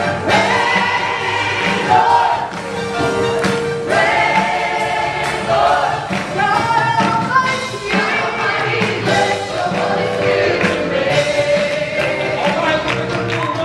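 A worship team of men and women singing a gospel chorus with the congregation, over a steady instrumental backing.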